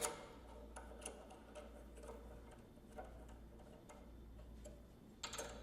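Faint light clicks of metal parts, roughly two a second, as the crank arm bolt is handled and started back into the square-taper bottom bracket spindle, with a somewhat louder click about five seconds in. A low steady hum sits underneath.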